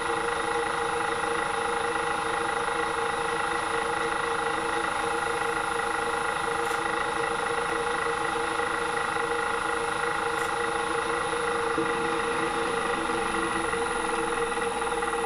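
Small bench drill's motor running steadily at a constant pitch while a fine bit drills bolt holes through a small cast-iron cover plate.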